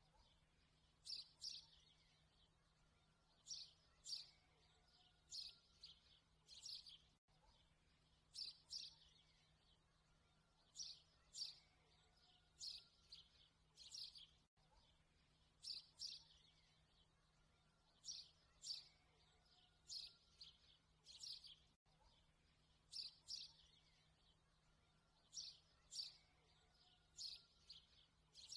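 Faint chirping birds in a short recorded loop that repeats about every seven seconds, over a faint steady hum.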